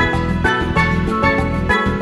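Music track with a steady beat, its notes struck about twice a second.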